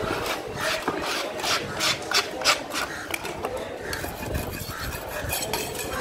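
A knife scraping the scales off a parrotfish on a wooden chopping block: quick rasping strokes, about three a second, blurring into a steadier scrape in the second half.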